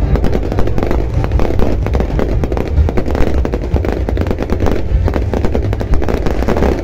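Fireworks display: a dense, unbroken barrage of bangs and crackles.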